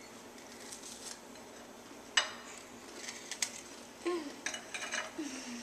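Scattered sharp clicks and clinks of plates and glasses knocking on a stone countertop, the loudest about two seconds in, with a few more toward the end. Two short hums from a voice come near the end.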